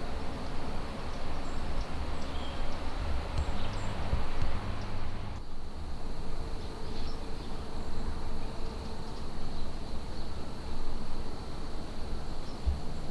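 Outdoor evening ambience: insects trilling in a steady high tone, over a louder low rumble of noise.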